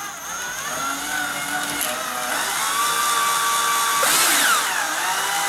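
12-volt cordless drill driving a self-tapping screw into a stucco wall, its motor whine rising and falling in pitch, with a louder scratchy grinding about four seconds in. The screw is going right through the stucco.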